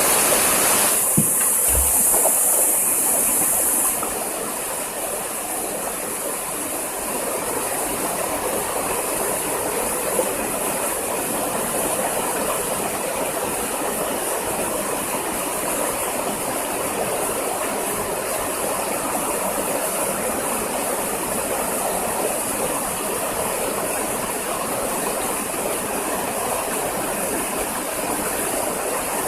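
Waterfall: a steady rush of falling and flowing water. A brighter high hiss sits on top for the first four seconds.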